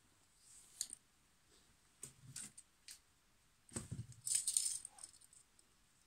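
Faint handling noise of small metal items: a few light clicks, then a short rattling jingle about four seconds in, as a Leatherman Wave multitool is picked up.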